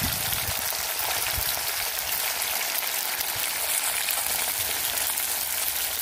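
Whole mutton snapper frying in hot oil in a cast-iron pot: a steady sizzling crackle.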